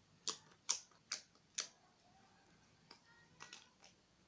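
Thick homemade tofu slime clicking and popping as it is pulled and pressed by hand: four sharp clicks about two a second, then a few fainter ones near the end.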